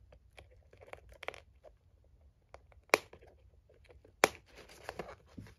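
Scissors cutting through the cardboard backing of a doll box: small ticks and crackles of the card, with two sharp snips about three and four seconds in, followed by rustling of the packaging.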